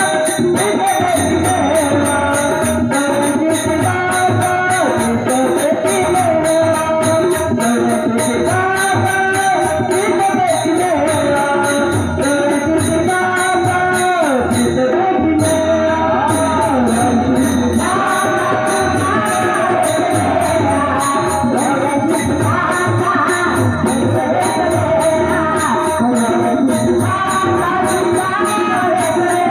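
A woman singing a Marathi abhang, a devotional bhajan, over a steady beat of jingling percussion and drum.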